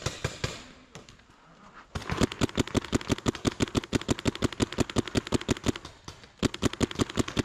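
Planet Eclipse M170R paintball marker firing close by in rapid strings, about ten shots a second: a few shots at the start, a long volley from about two seconds in, a brief pause, then another volley.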